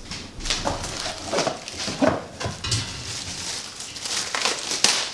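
Irregular rustling and crinkling of packaging as parts are handled and lifted out of a cardboard box.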